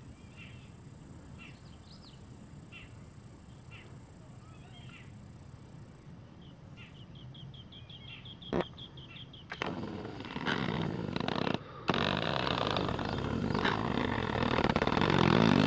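Faint short bird chirps over a steady high insect-like hiss, then a quick ticking run and a sharp click. From about ten seconds in, loud rushing noise drowns everything out.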